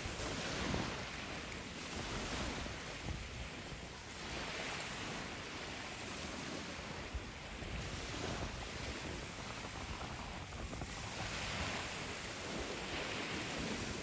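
Small waves breaking and washing up a shingle beach, the surf hiss swelling and fading every two to three seconds.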